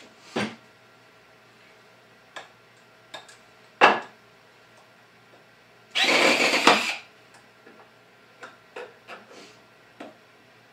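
Cordless drill/driver (BLACK+DECKER LDX120C 20V MAX) running for about a second, driving a screw into a wooden board. Before it come a few knocks from the board being handled on the workbench, the sharpest about four seconds in.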